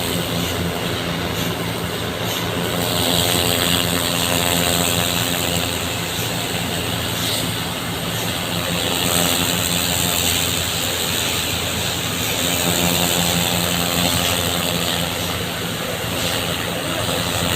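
Engine of the water-flushing equipment running steadily, with a continuous hiss of water spraying onto pavement.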